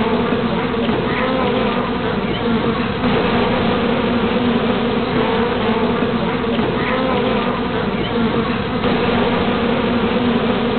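A swarm of honeybees buzzing in a steady, dense hum.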